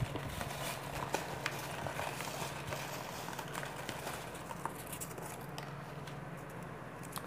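Folded paper raffle slips tumbling and ticking inside a plastic tub as it is tipped and shaken to mix them: scattered light clicks over a steady low hum.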